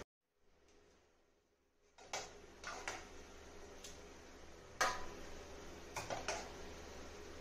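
Steel spoon clinking and scraping against steel pans and plates as khichdi is dished out: scattered sharp clinks, the loudest about five seconds in, after the first two seconds are nearly silent.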